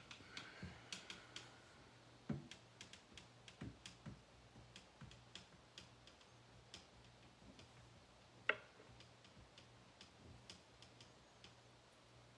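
Near silence with faint, irregular small clicks and taps over a low steady hum; a louder tap comes about two seconds in and a sharper click about eight and a half seconds in.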